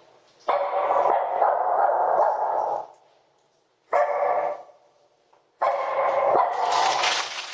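A dog barking in three spells with short pauses between, picked up by a doorbell camera's microphone.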